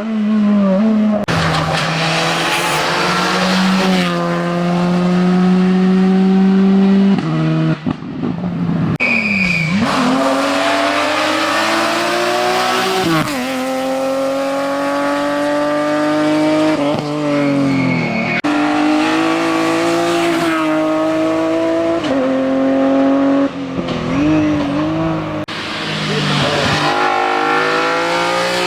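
Racing car engine at hard throttle, its pitch climbing and then dropping sharply again and again through gear changes and lifts for corners. Brief high tyre squeals come twice, about a third of the way in and again past the middle.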